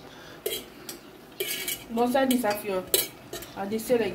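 Metal cookware clattering: a fork and stainless-steel pots and pans clink sharply several times while food is served from the pan. A voice is heard talking briefly in the second half.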